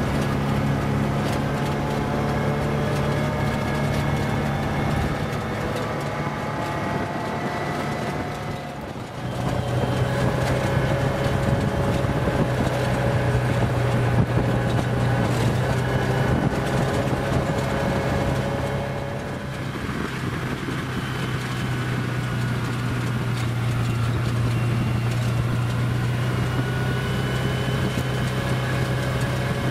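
Side-by-side off-road vehicle driving along a dirt and gravel trail: a steady engine drone whose pitch drifts slightly, with tyre and wind noise over it. The level dips briefly twice.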